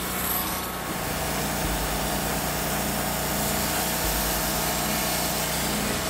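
TimberKing 2000 portable band sawmill sawing through a hemlock cant: a steady rasping cut from the band blade over the mill's engine running underneath.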